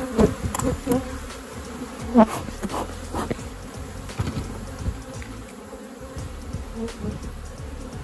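Swarm of honeybees buzzing around an opened hive while a wooden brood frame is lifted and handled. Several sharp handling knocks come in the first few seconds, the loudest about two seconds in.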